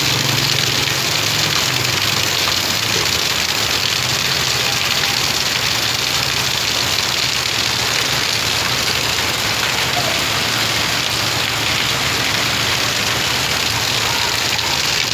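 Heavy rain pouring down as a steady, even hiss, with a low engine hum underneath that is strongest in the first few seconds.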